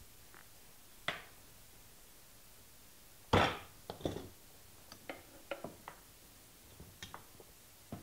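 Hammer knocks and lighter taps on tacks being driven through boot-vamp leather into a wooden crimping board. The loudest knock comes about three seconds in, followed by a quick run of lighter taps.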